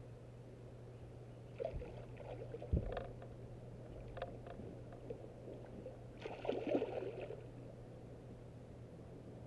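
Water splashing beside a boat as a hooked bass is fought at the surface, with scattered knocks and rattles on the boat and one sharp thump about three seconds in. A second, longer splashing rush comes past the middle, over a steady low hum.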